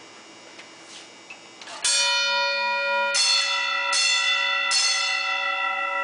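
The school's original fire alarm gong, a wall-mounted bell, struck in single strokes: one stroke about two seconds in, then three more in quick succession, each left ringing on as a bright, sustained metallic tone.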